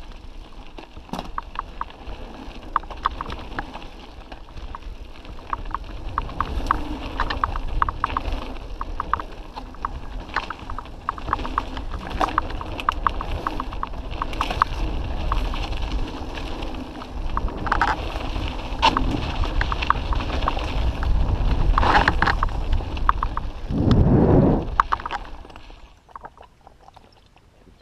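Mountain bikes riding down a dirt singletrack: tyres running over dirt and the bike and camera mount rattling with many rapid clicks, over a low wind rumble on the microphone. A louder, deeper surge comes shortly before the end, then the sound drops away as the bikes come to a stop.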